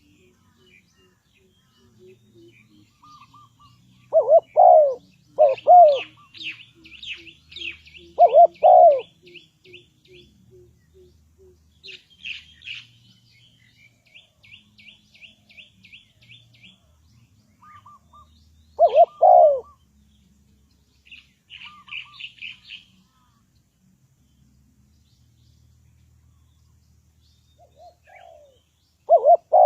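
Spotted dove cooing in short, loud phrases a few times, with another small bird's rapid high chirping trills in between.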